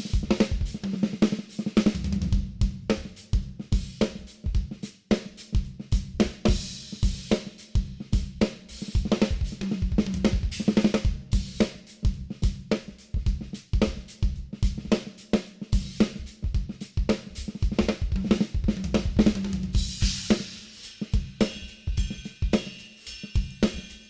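Acoustic drum kit played as a steady groove: kick drum, snare and hi-hat, with tom fills, and crashing, ringing cymbals in the last few seconds.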